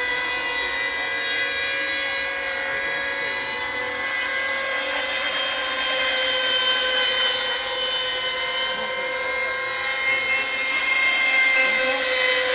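Several radio-controlled racing boats running at speed on the water, their small high-revving motors blending into one steady, high buzz with several pitches held at once.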